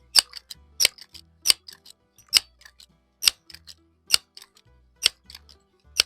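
Pump lever of a Crosman 1322 multi-pump pneumatic air carbine being worked to charge it for a shot. It gives about eight sharp clacks, roughly one a second, each followed by smaller clicks.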